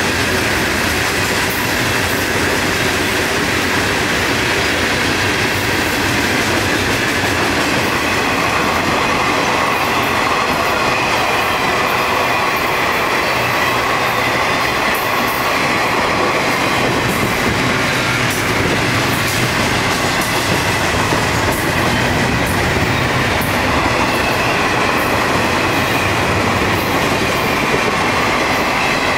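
Florida East Coast freight cars rolling past close by: a steady rumble and clatter of steel wheels on the rails that goes on without a break.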